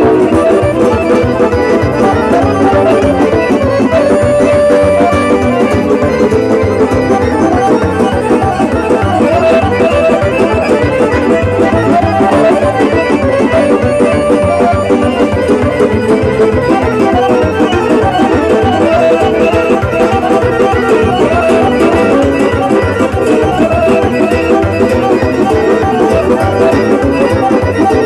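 Live Romanian folk music played through a loud PA: accordion with electronic keyboards over a steady beat.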